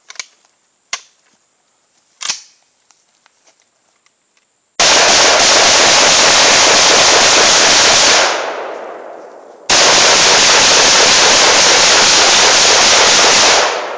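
Two long bursts of rapid gunfire, each lasting about four seconds and so loud that they overload the recording, with a fading echo after each. A few sharp clicks and knocks come before the first burst.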